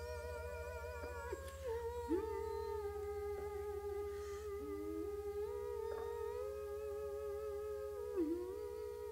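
Humming voices holding long notes that slide slowly from one pitch to the next, with a slight vibrato. A steady low electrical hum runs underneath.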